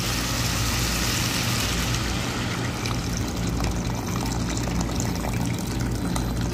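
A stream of water pouring steadily into a stainless steel cooking pot of sautéed chicken pieces, filling it for boiling, with a steady low hum underneath.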